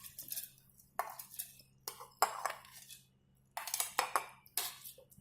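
Kitchen utensils clinking and scraping as soaked urad dal and rice are moved into a mixer-grinder jar: a handful of short, separate knocks and scrapes with pauses between.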